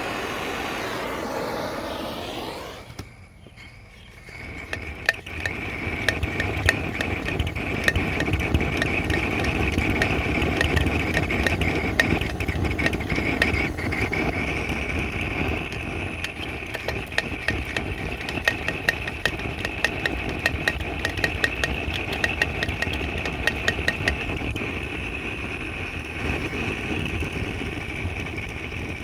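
Vintage gasoline blow torch lamp burning with a steady rushing flame and frequent crackling pops, the burner still warming up. The sound drops briefly about three seconds in, then comes back stronger.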